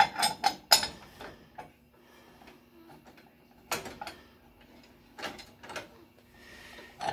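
Metal clicks and clinks of a box-end wrench working the loosened nut on the turret clutch pulley of a 1958 Brunswick A2 pinsetter: a quick cluster in the first second, then a few scattered taps, over a faint steady low hum.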